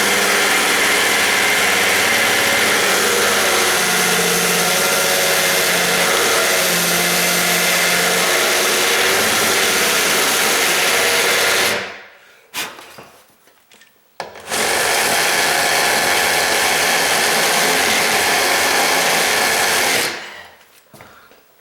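Handheld power tool with a rasp bit grinding into the edge of a steel door strike plate, running steadily for about twelve seconds, stopping briefly, then running again for about six seconds before winding down.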